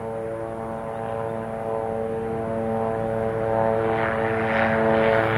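Low-flying helicopter approaching, a steady drone of several tones growing gradually louder. The owner takes it for a mosquito-spraying helicopter.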